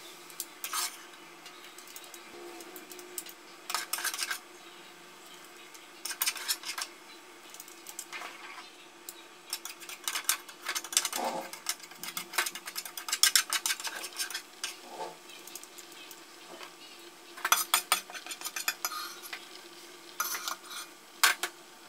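Metal ladle and chopsticks scraping and clinking against a frying pan and an aluminium pot while stir-fried food is scooped into the pot, in scattered clusters of clicks and scrapes.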